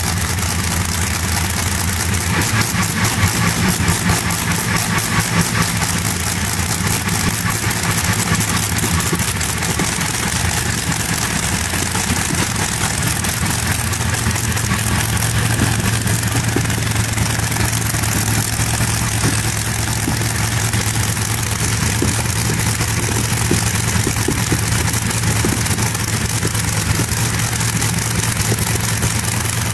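Rolls-Royce Griffon Mk 58 V12 aero engine in a tractor-pulling tractor, running steadily at idle on a test run. There are a few brief slight surges about three to five seconds in.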